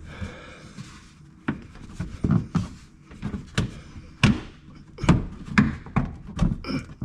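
Irregular thumps and knocks of a truck's inner fender liner being pushed and worked by hand back inside the front bumper, about a dozen blows, some coming in quick pairs.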